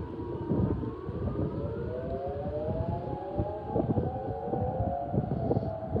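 Outdoor tornado warning sirens wailing, sounded as a real alert for a severe thunderstorm warning with 80 mph winds. Several sirens at different distances overlap, their pitches rising and falling out of step with one another. Gusty wind buffets the microphone underneath.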